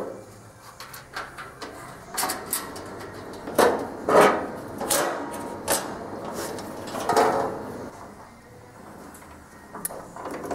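Workshop handling noises: scattered knocks and clicks, with a louder clatter of scraping and knocking about three to four seconds in and again about seven seconds in, as parts are moved and fitted.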